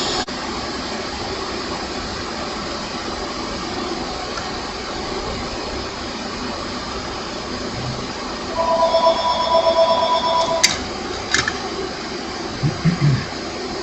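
A steady rushing noise throughout; about two-thirds of the way in a steady electronic two-tone note sounds for about two seconds, then two sharp clicks.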